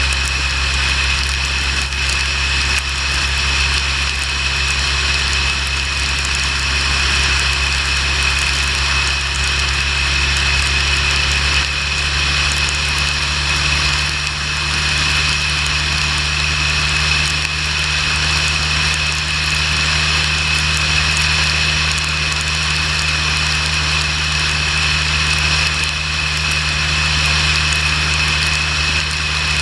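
Motorcycle running at a steady highway speed, its engine holding an even drone under loud, steady wind and road noise.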